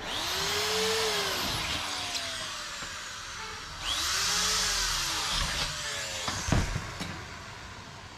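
A power tool's motor spinning up and then slowly winding down, twice, about four seconds apart, with a few light knocks after the second run.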